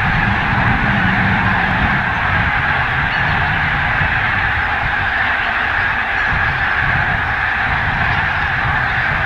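A large mixed flock of greater white-fronted geese and bean geese calling all at once: a dense, unbroken chorus of overlapping honks and yelps over a steady low rumble.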